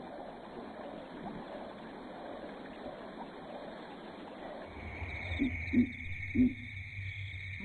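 Soft outdoor wildlife ambience, an even hiss. About two-thirds through, a low steady hum and a high steady tone come in, with three short low sounds in quick succession.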